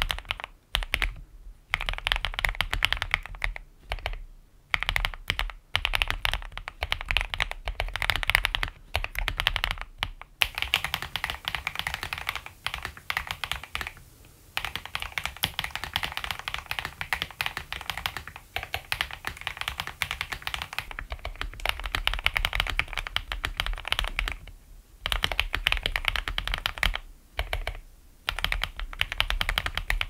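Typing on a Keychron Q3 aluminium mechanical keyboard with lubed and filmed Akko CS Crystal linear switches and PBT cherry-profile keycaps: fast, dense keystroke clacks in runs, broken by short pauses every few seconds. It is heard first through a condenser microphone and later through an iPad's built-in microphone.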